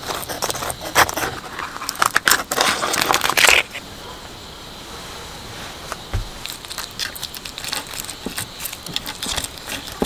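Grilled swimming crab being broken apart by hand: the shell and legs crack and snap in a dense run for the first few seconds, then after a quieter pause come scattered small cracks and clicks.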